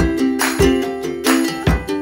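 Background music with plucked ukulele-like strings over a steady beat.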